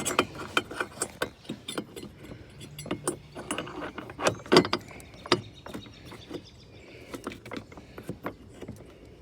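Hard plastic clicking and knocking as an LED low-beam bulb is twisted and seated in the back of a headlight housing: an uneven string of sharp clicks, the loudest about four and a half seconds in, growing sparser near the end.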